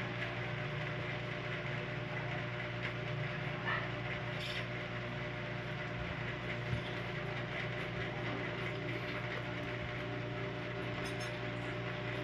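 Steady low mechanical hum, with a few light clicks from small parts and a thin metal panel being handled.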